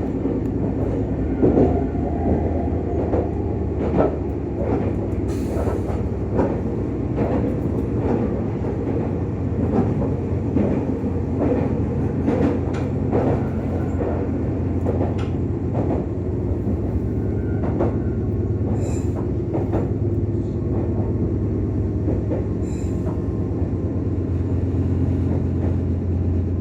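Meitetsu 6000 series electric train running, heard from inside the car: a steady low hum with irregular clicks and knocks from the wheels over the track.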